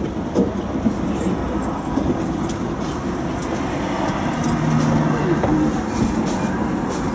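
Steady cab and interior noise of a Budapest Siemens Combino tram, a low rumble with scattered light rattles and clicks.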